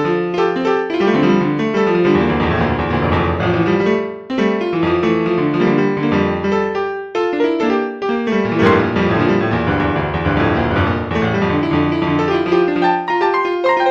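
Piano music playing steadily, with many quick notes and short pauses between phrases.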